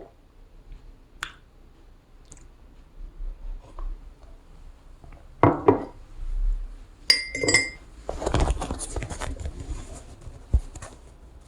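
Kitchen clatter of dishes and glassware: scattered light clinks and knocks, one ringing glass clink about seven seconds in, then a few seconds of hissing noise dotted with small knocks.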